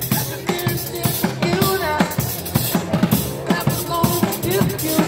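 A street busker playing a drum kit: rapid kick, snare and cymbal strikes, with pitched music running underneath.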